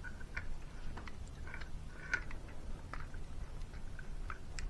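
Faint, scattered small clicks and light scrapes of hard plastic parts being handled and pried at while a Dyson Airstrait's housing is taken apart.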